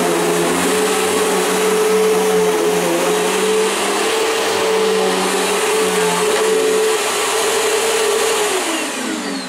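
Bissell PowerGlide Pet upright vacuum cleaner running on carpet, its brush roll driven by a freshly replaced belt, with a steady motor hum over rushing air. Near the end it is switched off and the motor winds down with a falling whine.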